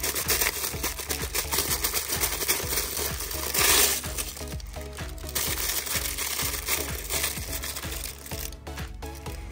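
Action-figure packaging of cardboard and plastic being opened by hand: dense rapid clicking and crinkling, with a louder rustle about three and a half seconds in. Background music plays alongside, more clearly in the second half.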